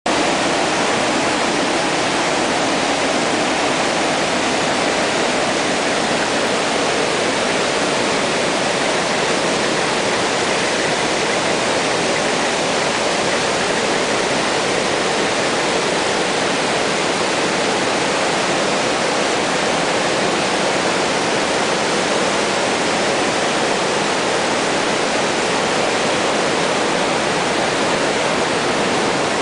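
A river in flood, swollen by heavy rain to about a metre above normal, rushing as brown whitewater over rocks and rapids. It is a loud, steady roar of water with no let-up.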